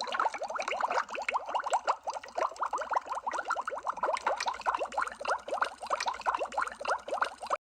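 Underwater bubble sound effect: a dense, steady stream of short rising bubbly blips, several a second. It cuts out for an instant near the end.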